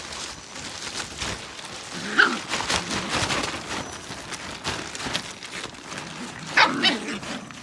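Australian Cattle Dog (blue heeler) puppies playing, giving a short yelp about two seconds in and a louder one near the end, amid scuffling and scratching noises.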